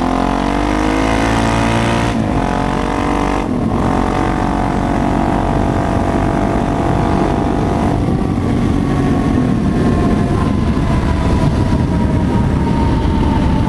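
Suzuki DR-Z supermoto's single-cylinder four-stroke engine pulling away, its note rising, with two brief breaks for gear changes about two and three and a half seconds in, then running steadily at cruising speed with the pitch slowly sinking over the last few seconds. Heavy low rumble of wind on the microphone.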